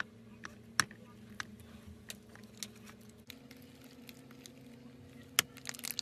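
Slime being squeezed and poked, giving scattered small wet pops and clicks. The sharpest come about a second in and again near the end, over a faint steady hum.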